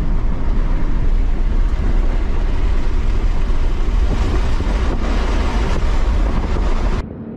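Tyre, road and wind noise inside a Tesla Model 3 Performance accelerating hard on a race track from about 55 to 90 mph: a heavy low rumble under a rushing hiss that grows brighter as speed builds. It cuts off suddenly about seven seconds in.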